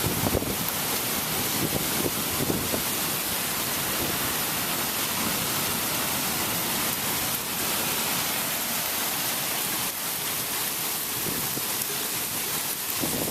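Heavy thunderstorm rain falling steadily as a dense, even hiss, with a few sharper taps in the first three seconds.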